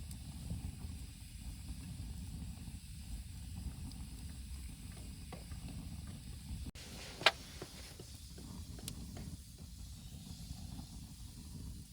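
Wood campfire burning with a faint hiss over a steady low rumble, a few small crackles, and one sharp loud pop about seven seconds in.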